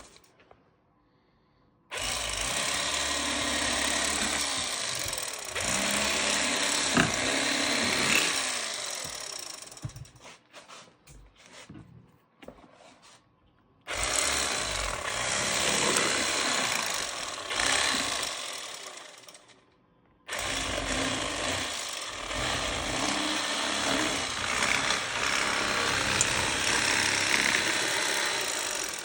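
Bubba cordless electric fillet knife running in three long buzzing bursts as it cuts perch fillets, stopping briefly about ten seconds in and again around twenty seconds.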